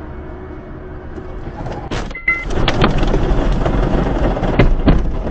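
Steady road noise inside a moving car, then from about two seconds in a loud rumbling and knocking as a car bounces off the road across rough grass, with two heavy thumps near the end.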